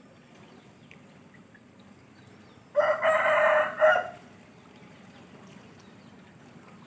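A single loud animal call, pitched with a rich stack of overtones, lasting about a second and a half and starting about three seconds in, with a short break just before it ends.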